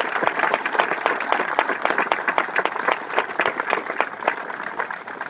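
Seated crowd applauding, a dense patter of many hands clapping that thins out near the end.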